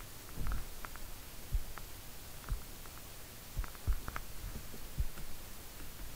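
Faint low thumps, about six spread irregularly, with a few small clicks among them over a steady low hum, like desk or microphone handling noise.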